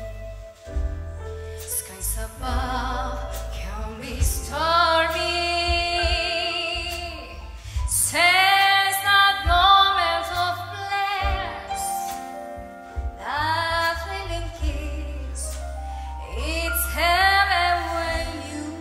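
Live big band accompanying a female singer who sings several long held notes with vibrato.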